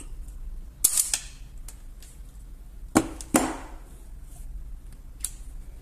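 Sharp snaps and clicks of a hand tool stripping the insulation off a solar PV cable: two close together about a second in, two more about three seconds in, and a single one near the end.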